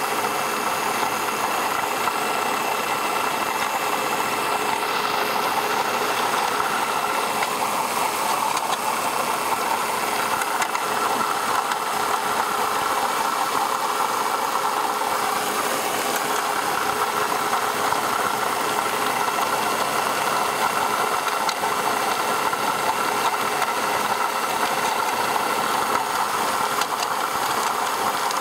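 2004 Ford Taurus V6 idling with the air-conditioning compressor engaged, under a steady grinding noise and a constant whine from a spinning part at the front of the engine. The owner is unsure of the cause and suspects the air-conditioning compressor.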